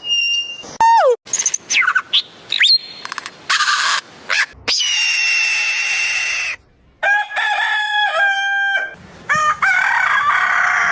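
A quick succession of abruptly cut bird calls, with a rooster crowing among them: short whistles and pitch glides, then longer held calls.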